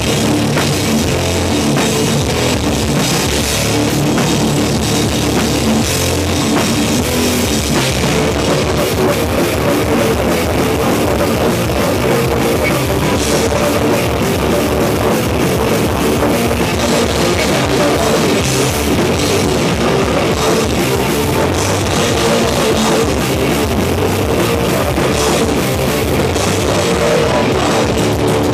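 Heavy rock band playing live at full volume: distorted electric guitars over a pounding drum kit, loud and unbroken.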